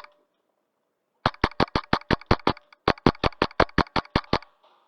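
Wolverine MTW HPA airsoft rifle firing in two rapid strings of about eight shots each, around six shots a second, starting about a second in with a short break in the middle.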